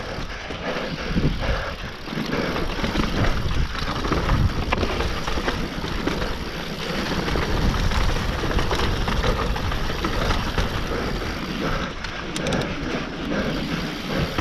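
Mountain bike descending a dirt trail: a steady rush of tyre noise over dirt and rock, with constant small rattles and knocks from the bike.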